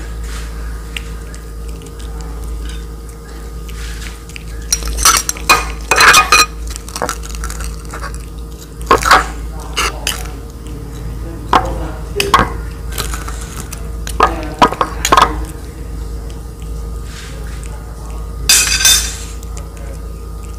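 Metal spoon clinking and scraping against a ceramic plate as it breaks up pieces of cooked fish, in irregular bursts through the middle and once more near the end, over a steady low hum.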